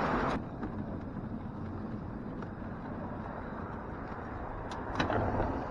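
Car driving on the road, a steady low rumble of engine and road noise that drops suddenly in level about half a second in, with a few light clicks near the end.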